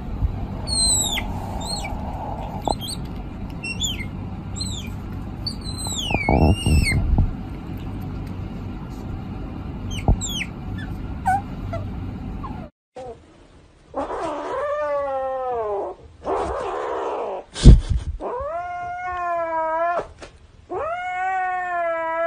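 A pet otter giving short, high squeaks that fall in pitch, then a kitten meowing, several drawn-out meows one after another, with a single sharp knock between them.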